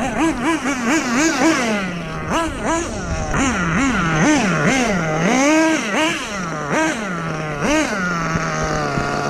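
Kyosho USA-1 Nitro monster truck's glow-fuel engine revving up and down in quick throttle blips, its pitch rising and falling again and again, then holding a steady lower note near the end.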